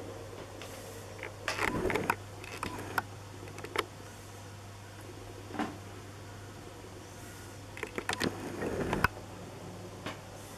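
Scattered small knocks and rustles of handling, some in short clusters and some single clicks, over a steady low hum.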